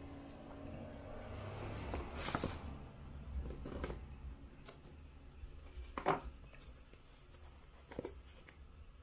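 Hands handling a small square cardboard watch box: soft rustling with a few light knocks and clicks. The loudest clicks come about two and a half and six seconds in.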